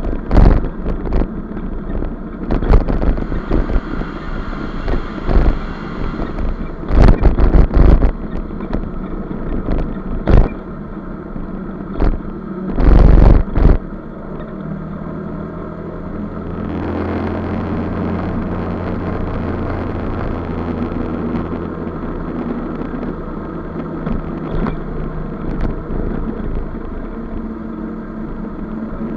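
Maxi-scooter riding along at road speed, its engine running with road and wind noise. In the first half, several loud rushes of noise break in. Past the middle, the engine settles into a steadier hum.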